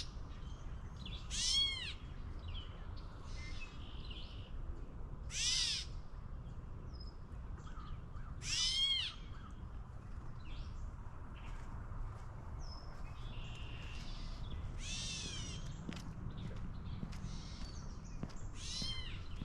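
A bird gives six short, harsh calls a few seconds apart, each rising then falling in pitch, over faint chirping from other birds.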